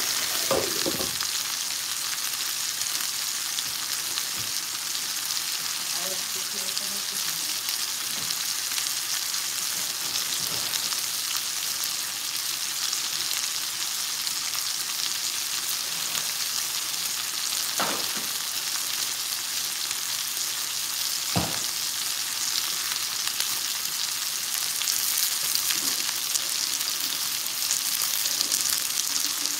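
Lamb chops frying in butter in a cast-iron skillet: a steady sizzle throughout, with two short sharp knocks about two-thirds of the way through.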